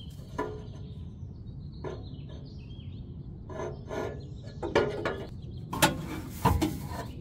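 Subaru Outback's rear exhaust muffler being worked free of its rubber hangers and pulled off the pipe: a run of metal knocks and clunks, loudest near the end with a deep thud. Birds chirp in the background.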